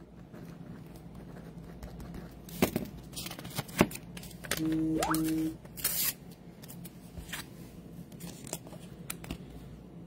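Trading cards in plastic toploaders being handled on a table: scattered clicks, scrapes and snips, with a brief steady tone about halfway through.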